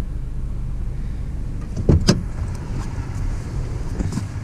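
2021 Toyota Tacoma's engine idling, a steady low hum heard inside the cab, with a brief rising swish about two seconds in and a fainter one near the end.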